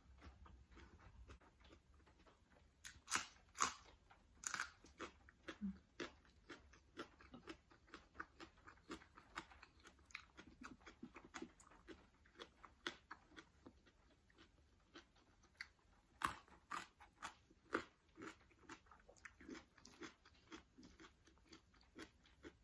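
Close-up eating sounds: crisp bites and crunching chews at a steady pace, with a few louder crunches a few seconds in and again past the middle.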